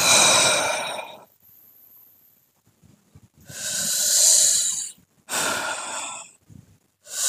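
A man breathing out hard three times, long hissing breaths of about a second each with short pauses between.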